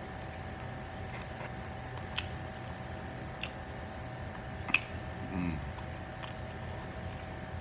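Close-miked eating sounds: pizza crust being torn and chewed, with scattered short sharp mouth clicks, the loudest a little under five seconds in, followed by a brief 'mm'. A steady hum runs underneath.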